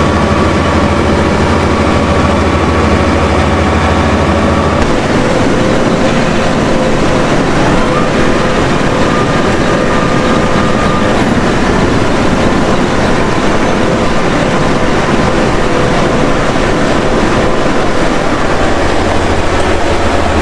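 Tractor engine running steadily while pulling a litter pulverizer through poultry-house litter, its engine note shifting about five seconds in.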